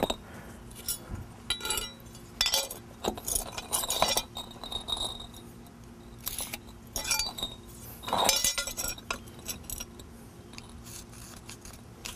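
Short clinks, knocks and scrapes of concrete pavers and a metal speed square set against one another as a paver is positioned and squared up for marking. They come irregularly, with a longer one about eight seconds in.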